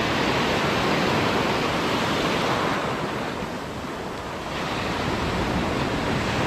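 Ocean surf breaking and washing up the beach around the feet, a steady rush that eases a little about halfway through and builds again.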